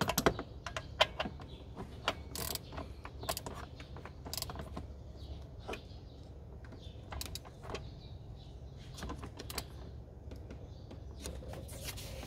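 Irregular clicks and clinks of hand tools on metal as the lower bolt of a belt tensioner shock absorber is fitted and tightened, over a steady low hum.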